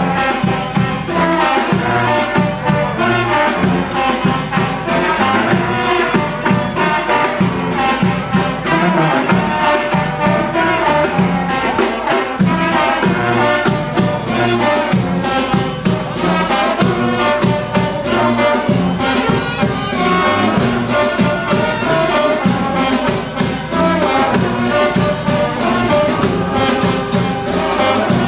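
Brass band playing dance music, trumpets and trombones over a steady low beat.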